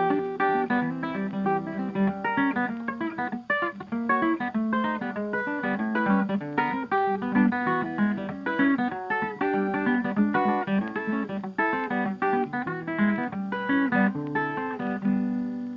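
Background music: a plucked guitar playing a quick run of notes, starting to fade out near the end.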